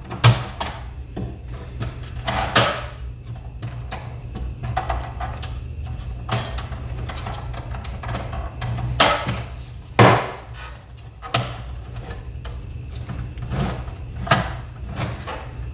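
Plastic-and-metal clicks, knocks and scrapes as a DVD player's front panel is pried and worked loose by hand, the sharpest knocks about nine and ten seconds in, over a steady low hum.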